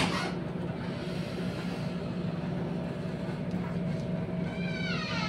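A steady low background hum throughout. Near the end comes a short high cry that glides down in pitch, like an animal's or a child's call.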